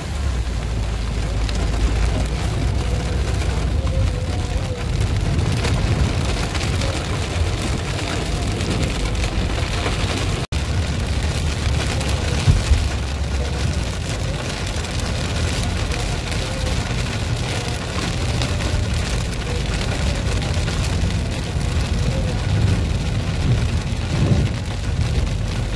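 Rain drumming on a moving car's windshield and roof over a steady rumble of road and engine noise inside the cabin. The sound cuts out for an instant about ten seconds in.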